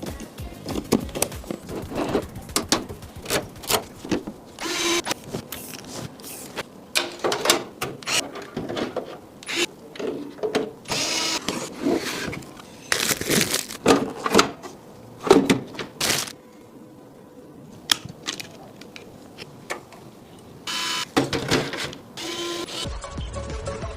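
Computer parts being handled and fitted during a PC build, with irregular clicks and knocks. Several short whirs of an electric screwdriver are heard among them.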